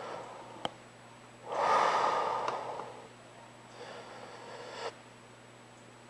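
A man's breathing while he holds an air rifle on aim: a few slow breaths, the loudest about a second and a half in, with a single sharp click shortly before it.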